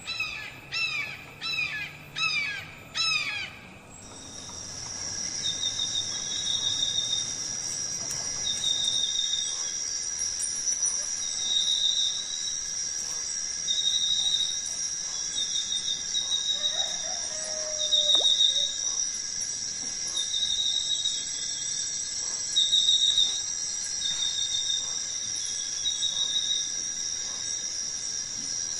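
Rainforest ambience: for the first few seconds a bird calls repeatedly, about every half second, each call a falling note. From about four seconds in a steady high-pitched insect drone takes over, with a shorter pulsing call repeating every second or two.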